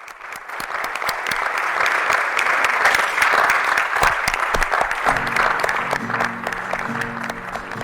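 Audience applauding. The applause thins out as the song's instrumental intro begins about five seconds in.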